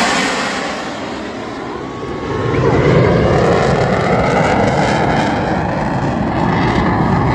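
Blue Angels F/A-18 Super Hornet jets passing overhead, a loud roar that eases off about a second in and then swells again about two and a half seconds in, its pitch sliding as the jets pass.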